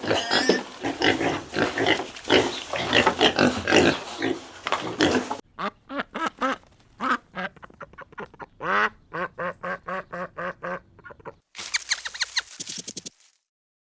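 Farm animals calling in three clips cut together. First, about five seconds of dense overlapping calls. Then spaced, repeated calls. Near the end come high-pitched chirps that stop abruptly.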